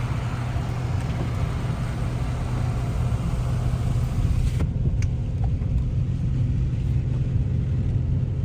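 Vehicle driving, heard from inside the cabin: a steady low engine and road rumble, with a high hiss that drops away about halfway through.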